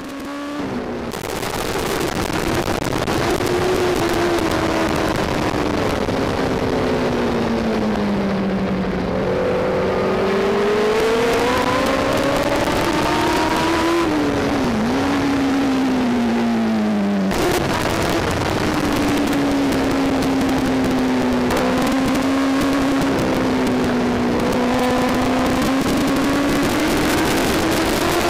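Kawasaki ZX-10 superbike's inline-four engine at racing speed, heard onboard with wind rush, its note sliding slowly down and up as the bike slows and accelerates, with a sharp drop about fourteen seconds in and an abrupt jump about seventeen seconds in.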